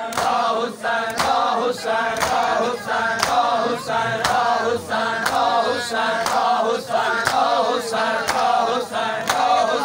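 A group of men chanting a noha, a Shia lament, in unison, over rhythmic chest beating (matam) at about two slaps a second.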